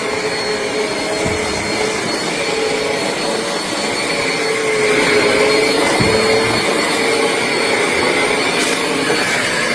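Eureka Airspeed bagless upright vacuum cleaner running steadily, its motor whining with a slight waver in pitch as it is pushed over the floor picking up bits of wood.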